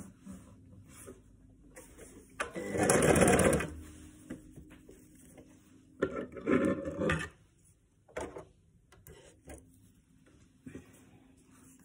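Electric sewing machine running in two short bursts of stitching, the first with a fast, even rattle about two and a half seconds in, the second shorter around six seconds, with small clicks and handling noises between.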